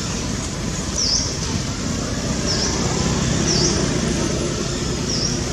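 Outdoor ambience: a steady low rumble, with a bird's short dipping-and-rising chirp repeating about every second and a half.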